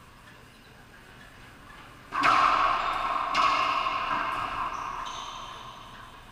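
Racquetball shots: a sharp crack of the ball about two seconds in, another about a second later and a couple of fainter hits, each ringing on in the echo of the enclosed court.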